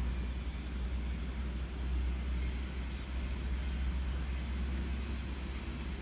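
Steady low rumble of a car's running engine, heard from inside the cabin, with a faint even hiss above it.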